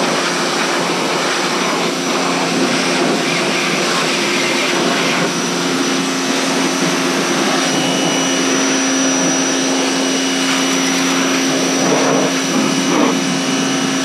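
Pressure washer running steadily, its motor hum under the hiss of the high-pressure water spray as it washes mud off an ATV. The hum shifts lower about five seconds in.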